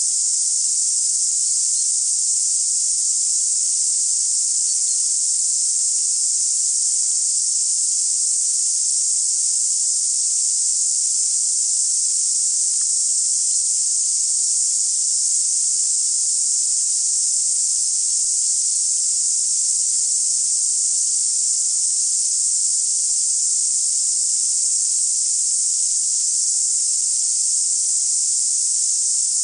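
A steady, high-pitched hiss that does not change.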